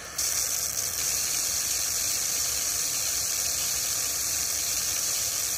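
Water running from a garden hose in a steady hissing stream, splashing over a handful of leafy greens being rinsed under it and onto the paving. It comes in abruptly right at the start and holds even.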